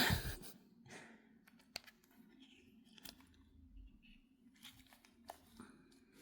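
Small handling sounds: scattered faint clicks and short rustles of plastic doll parts and packaging being fiddled with, after a louder rustle right at the start.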